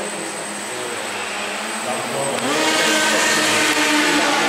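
Propellers of a small flying RC truck, a multirotor carrying a truck body, spinning up with a rising whine about halfway through as it lifts off, then a steady whine and buzz as it climbs.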